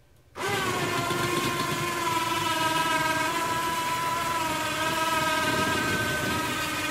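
Electric hoist motor lifting a loaded straw basket out of a pasteurization tank. It starts abruptly about half a second in, its pitch settling in the first moment, then runs as a steady whine.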